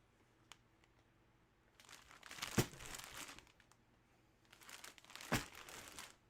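Plastic packaging crinkling as it is handled, in two short bouts, each with one sharp snap.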